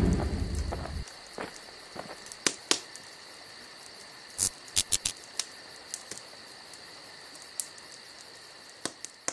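A deep boom at the start that dies away over about a second, then a steady night ambience of crickets chirping, with scattered sharp clicks.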